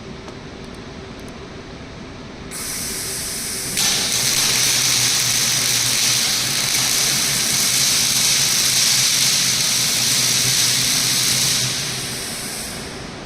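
Robotic welder's arc running: a steady hiss that starts faintly about two and a half seconds in, turns much louder about a second later with a low hum under it, holds for some eight seconds and then fades out.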